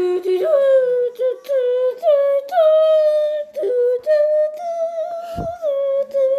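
A voice singing a wordless tune in held notes, a new note about every half second.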